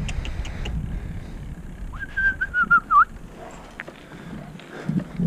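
A short whistled phrase, about a second long, of several wavering notes, over a steady low rumble of wind on the microphone while riding.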